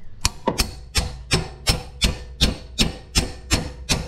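A 3-pound sledgehammer striking a ball joint removal tool to drive it into place on a lower ball joint: a steady run of sharp metal clanks that ring briefly, about three a second.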